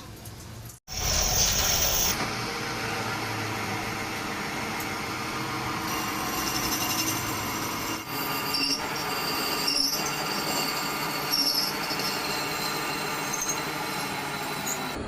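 Workshop machinery running steadily with a metallic, squealing whine, metal being worked on a truck axle part. It breaks off abruptly just under a second in, then carries on.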